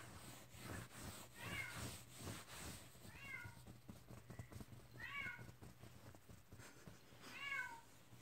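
Bengal kitten meowing: four short, high, falling meows about two seconds apart. Soft rustling of fabric runs under the first few.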